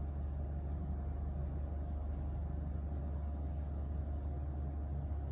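Steady low droning background noise, unchanging throughout, with no distinct events.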